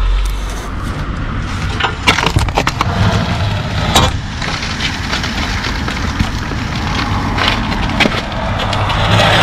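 Rough scraping and clattering with frequent sharp knocks, strongest about two and four seconds in, as a rusty steel angle-iron lintel and its loose rust and mortar debris are handled on the brickwork.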